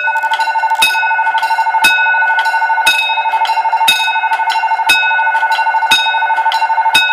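Railway level-crossing warning bell ringing, with sharp strikes about once a second over a steady ringing tone, and a rapidly pulsing electronic chime beneath them, signalling that a train is approaching.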